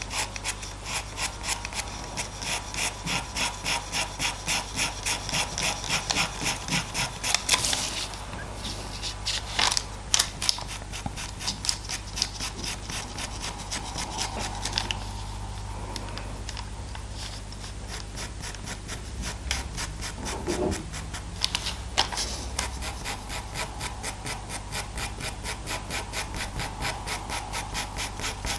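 Pastel pencil scratching across Pastelmat paper in rapid, regular short strokes, hatching a fur base layer. The strokes pause into a softer, sparser stretch for much of the middle, with a couple of light clicks, then pick up again near the end.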